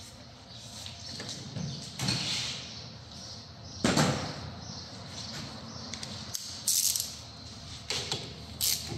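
Scuffs and knocks of tools being handled, with a louder clatter just before four seconds in and a few sharp clicks near the end as a socket wrench is fitted to a brake caliper bolt.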